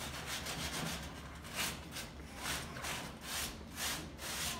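Sandpaper rubbed by hand over a metal window grille in quick back-and-forth scraping strokes, about two a second. It is rubbing rust and old paint off the bars to prepare them for painting.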